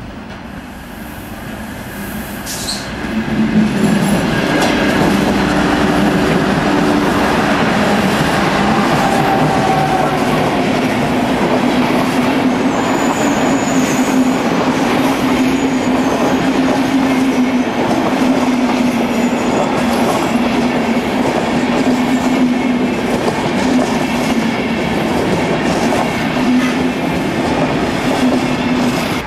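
Train moving along the tracks. It grows louder over the first few seconds, then runs steadily with a constant hum and a regular clickety-clack of wheels over rail joints.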